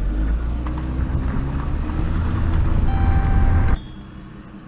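Vehicle running, a steady low engine and road rumble that rises slightly, with a short steady high-pitched tone about three seconds in; the rumble cuts off abruptly near the end.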